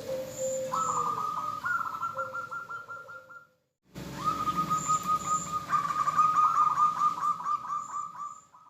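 Zebra doves (perkutut) cooing in rapid trains of short staccato notes, with a lower drawn-out note early on. The calls break off into a short silence about three and a half seconds in, then resume and fade near the end. It is the female call used to draw male zebra doves into song.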